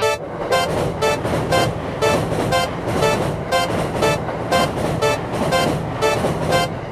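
Railroad crossing warning bell ringing about twice a second, over the steady rumble of a passing train.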